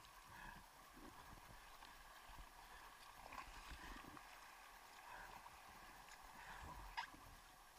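Faint, muffled water sloshing close to the camera, with a single sharp knock about seven seconds in.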